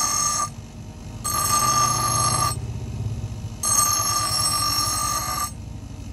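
Electric bench grinder grinding the edge of an old steel axe head: a high, ringing screech each time the steel is pressed to the spinning wheel. There are three passes with short gaps between, where only the grinder motor's low hum is heard, and the last pass stops near the end.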